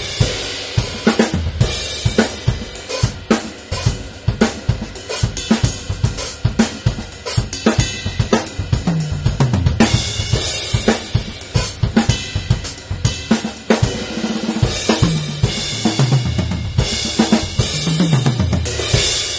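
Drum kit with Diril Sweet Series cymbals, recorded raw without EQ: a steady groove of kick, snare, hi-hat and cymbal strikes. In the second half, several fills run down the toms, falling in pitch.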